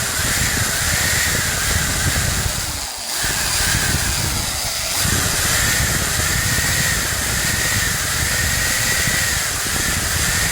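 Electric drill running under load, boring out holes in an amplifier's transistor heat sink, with a wavering whine. It stops briefly about three seconds in, then carries on.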